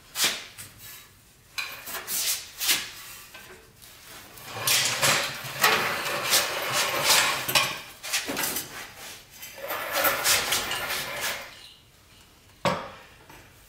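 Metal clanks and scrapes, then two longer stretches of grinding rattle as a floor jack carrying a manual transmission is rolled out from under a pickup truck over a concrete floor. A single sharp knock comes near the end.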